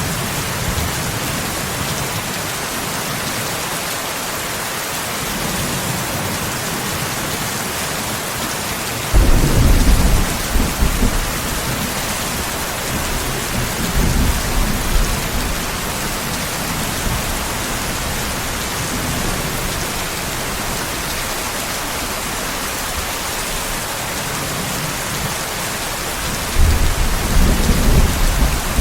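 Steady rain with rolls of thunder: a rumble breaks in suddenly about a third of the way through, a softer one follows a few seconds later, and another starts near the end.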